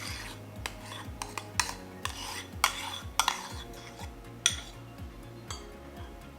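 A kitchen utensil clinking, knocking and scraping against a mixing bowl as whipped topping is scooped into canned pumpkin. There are a dozen or so irregular sharp clicks.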